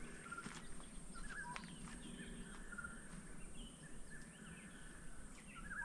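Faint birdsong: scattered short chirps and whistles over a low, steady background hush.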